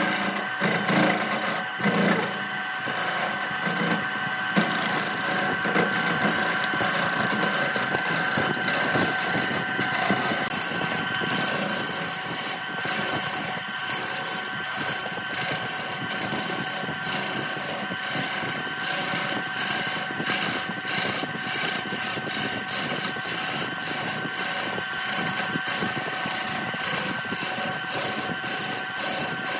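Lathe gouge cutting into a large wooden blank spinning on a wood lathe: a steady rasping hiss of wood being cut, with a steady whine underneath. In the second half the cutting hiss pulses about twice a second.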